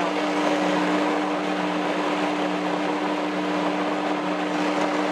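Blendtec countertop blender running steadily at one pitch, puréeing a thick mix of cooked beets, plums and banana.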